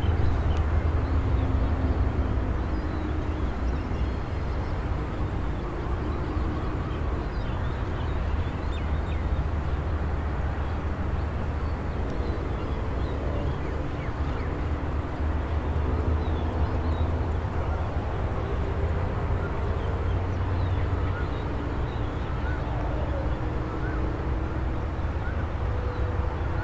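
Open-air rural ambience: a steady low rumble of distant engines, with faint humming tones that come and go and a few thin, high chirps.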